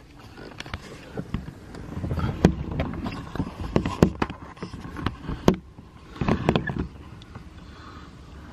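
Handling noise from a phone being picked up, moved and propped in place: a run of irregular clicks, knocks and rustles over several seconds, then a short scuffle, and after that a steady low rumble.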